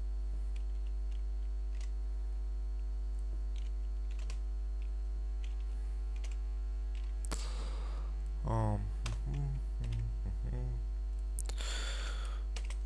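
Sparse keystrokes clicking on a computer keyboard, over a steady low mains hum. About two thirds of the way in, a low voice mutters briefly, and there are two short bursts of hiss.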